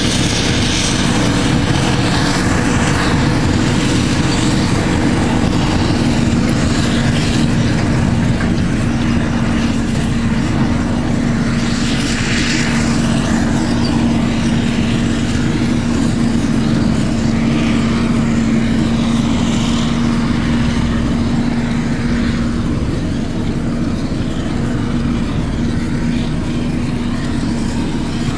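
Claas Jaguar 890 forage harvester running steadily while chopping maize, together with the tractor pulling the trailer alongside it. A steady machine hum holds over a rough low rumble.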